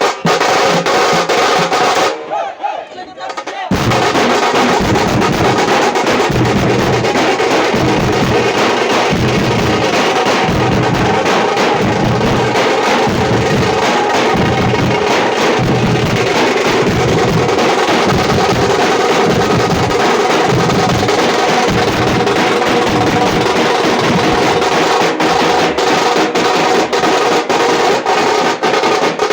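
Tamate frame drums playing a fast, steady rhythm with regular deep strokes under dense rapid beats. The drumming briefly drops away about two seconds in, then comes back at full level.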